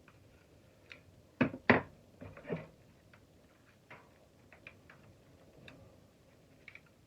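Two sharp knocks about a second and a half in, then softer knocks and scattered light clicks and taps, as hand tools work on a disassembled shop vac motor.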